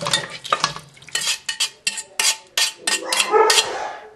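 A metal utensil scraping and clinking against a metal pot and a mesh strainer as braised short ribs and vegetables are scooped out. Liquid splashes at first, then from about a second in comes a quick, irregular run of sharp clinks.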